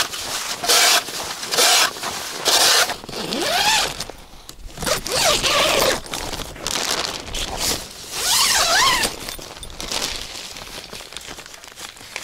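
Tent door zippers being pulled in a series of strokes: about three short, sharp zips in the first few seconds, then longer pulls that rise and fall in pitch.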